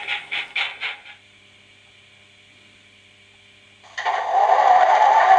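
Sound-decoder steam chuffing from a model steam locomotive's loudspeaker, about four beats a second, dying away about a second in. After a near-quiet pause with a faint hum, a model French autorail's sound decoder suddenly starts a loud, steady diesel-engine running sound near the end.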